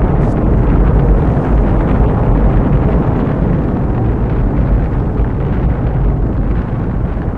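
Film sound effect for a flaming meteor passing overhead: a deep, steady rumble of rushing noise, easing a little toward the end.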